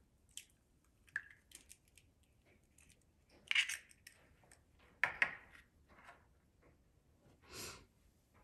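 An Easter Egger chicken egg cracked by hand over a bowl: a few light clicks, then a brief crackle of shell breaking open about three and a half seconds in, then more clicks as the shell halves are handled and set down.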